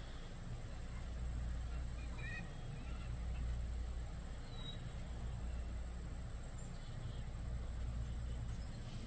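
Outdoor summer ambience: a steady low rumble under a constant high insect buzz, with a few faint bird chirps about two seconds in and a short whistle near the middle.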